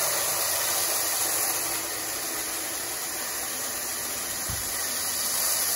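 Grade 3 AFM crushed-glass filter media pouring steadily from a bag into a pool filter tank, a continuous hiss of grains running over one another, with a brief low bump about four and a half seconds in.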